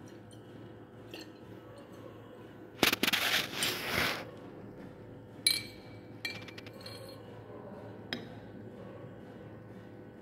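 Solution sloshing in a glass conical flask as it is shaken, a rushing swish lasting about a second and a half. Then a few light glass-on-glass clinks with a short ring, from a glass rod against a glass beaker.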